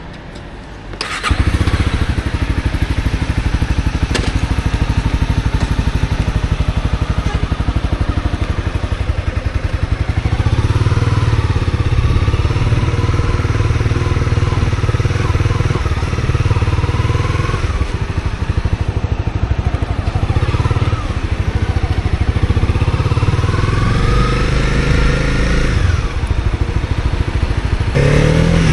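Honda CB250R's single-cylinder engine starting about a second in, then running as the motorcycle pulls away and rides. Its pitch rises and falls with the throttle and gear changes.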